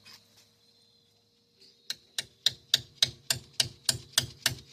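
Hammer striking metal in a steady rhythm, about three to four sharp ringing blows a second, starting about two seconds in.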